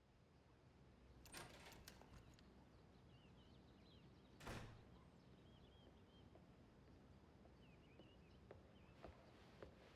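Quiet outdoor ambience: faint distant birds chirping over a low hiss, with a couple of soft knocks, the clearest about four and a half seconds in.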